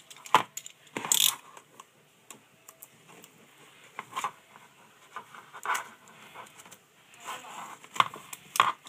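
Plastic and card retail packaging of a phone case being handled and opened: irregular sharp clicks and taps with some rustling, the loudest about half a second in and near the end.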